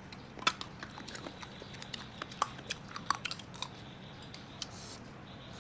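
A person chewing and biting into chicken close to the microphone: a string of short, sharp wet clicks and smacks, thick for the first few seconds and thinning out near the end.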